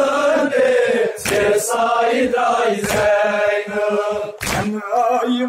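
Crowd of men chanting a Shia nowha (mourning elegy) in unison, with about four loud slaps of hands striking chests (matam) cutting through the singing.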